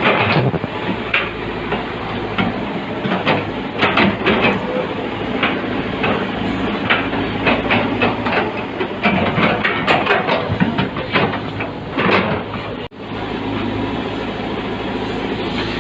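Heavy diesel earthmoving machinery running with a steady low drone, overlaid by frequent irregular metallic clanks and rattles, as from steel tracks or a bucket working. The sound cuts out for an instant near the end, then resumes.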